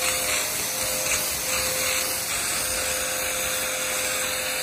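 STARQ ST-25 2100-watt electric pressure washer running with a steady hiss and motor whine. It is spraying water and foam at high pressure through its supplied foam attachment.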